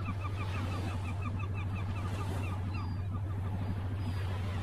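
Steady low boat-engine drone that starts suddenly, with quick repeated bird calls, about five short notes a second, above it.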